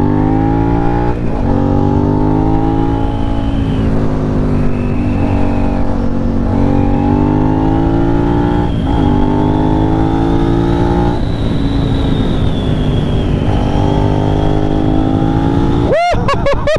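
Twin-cylinder sport motorcycle engine accelerating hard through the gears: the note climbs in pitch, dips briefly at each upshift, and climbs again, several times over.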